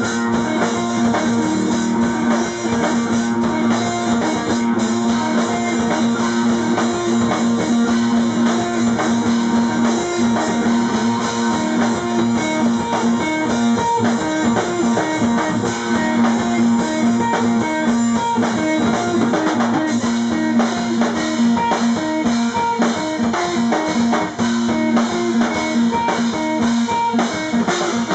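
A rock band playing live: guitar and drum kit, the guitar repeating a steady figure over continuous drumming.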